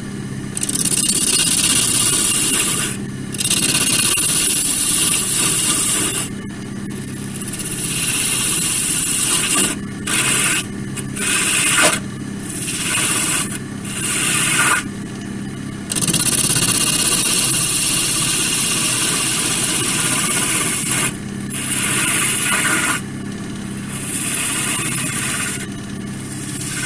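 Wood lathe motor running with a steady hum while a bowl gouge cuts the spinning laurel wood, a hissing scrape that comes and goes in repeated passes, some several seconds long and several brief ones in quick succession.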